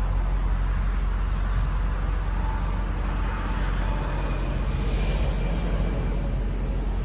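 Mercedes-AMG GT 63 S 4-door's 4.0-litre twin-turbo V8 idling steadily, a low even rumble.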